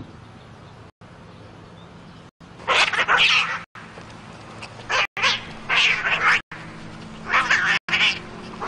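Two cats fighting: after a couple of quiet seconds, a run of loud, short bursts of screeching and hissing, starting about two and a half seconds in and coming in several bouts.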